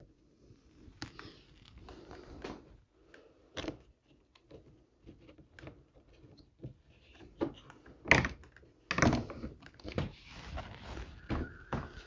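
Plastic interior door trim panel being worked over the window sill and pressed onto a car door: scattered clicks and knocks of plastic against the door, with two louder thumps about eight and nine seconds in, then rustling and scraping.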